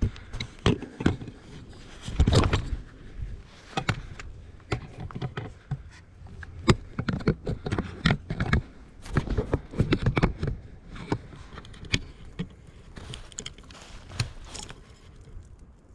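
Irregular crunching, snapping and knocking of someone moving through snowy brush on foot, mixed with camera handling bumps; the loudest thump comes about two seconds in.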